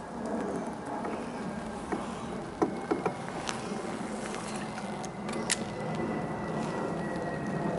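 Bow-mounted electric trolling motor humming with a thin steady whine. A few sharp clicks fall near the middle and again a little later.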